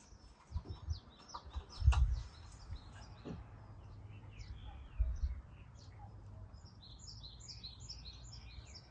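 Small birds chirping outdoors, with a quick run of chirps near the end. Two brief low thuds, about two seconds in and about five seconds in, the first being the loudest sound.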